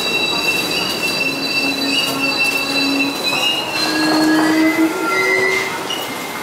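R160 subway train starting to pull out of the station. Its motors whine in tones that step up in pitch from about three to four seconds in, over a steady rumble and high, steady squealing tones.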